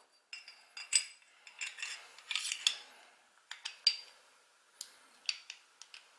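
Steel parts of an STI 2011 Edge pistol clicking, clinking and scraping against each other as the pistol is put back together: a string of sharp metallic clicks with a brief scrape about two seconds in.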